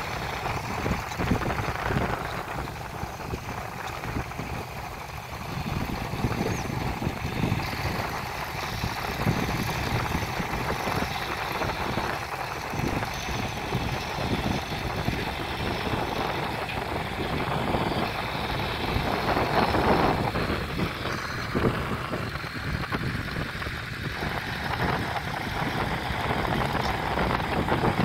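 Wind buffeting the phone's microphone: a steady rushing noise that rises and falls in gusts.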